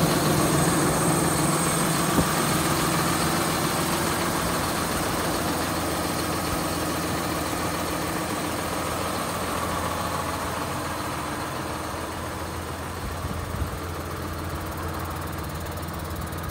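John Deere 6930 Premium tractor's six-cylinder diesel engine idling steadily, its hum growing slightly quieter toward the end.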